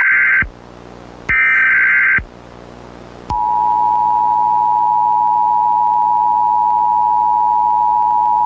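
Emergency Alert System header: the tail of one burst of buzzy digital SAME data, then the last burst of the three-times-repeated header, each under a second long with a pause between. About three seconds in, the steady two-tone EAS attention signal starts and holds.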